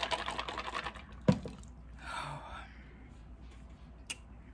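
Close-miked chewing with fine, crackly mouth sounds for about the first second, then a single sharp knock, followed by a short soft rush of noise and a faint click near the end.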